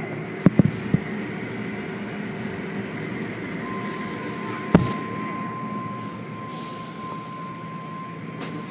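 Automatic tunnel car wash heard from inside the car: a steady rumble of the wash machinery and water. Three sharp knocks come in the first second and another near the middle, and a steady high tone sounds from the middle on.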